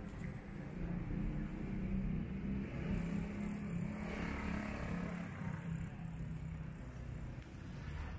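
A motor vehicle's engine running near the street with a steady low hum over general street noise; the hum fades out about seven seconds in.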